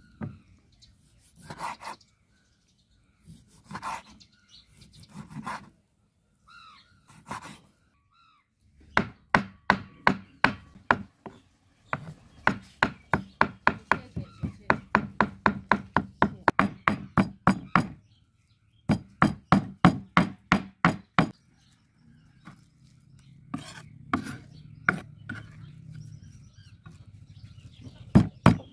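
Kitchen knife slicing and then chopping raw pork on a wooden chopping board. A few separate cutting strokes come first, then rapid chopping at about four or five strikes a second as the pork is minced, broken by short pauses.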